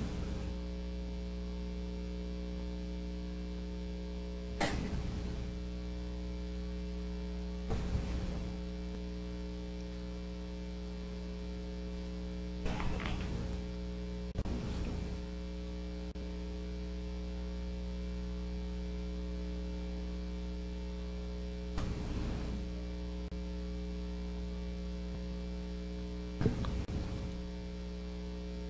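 Steady electrical mains hum in the meeting room's audio feed, with a few brief faint noises scattered through it.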